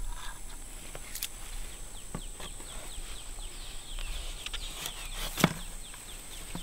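Scattered knocks and scrapes as a stick is worked down inside a PVC pipe rod holder set in the soil, the loudest knock about five seconds in. A steady high insect drone runs underneath.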